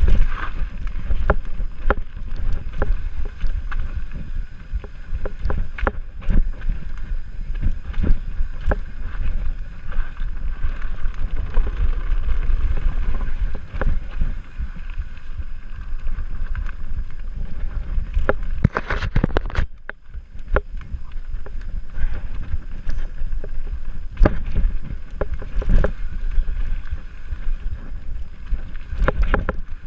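Mountain bike descending a dirt singletrack: tyres rumbling over the trail with frequent rattles and knocks from the bike over bumps, and wind buffeting the microphone. There is a short quieter moment about two-thirds of the way through.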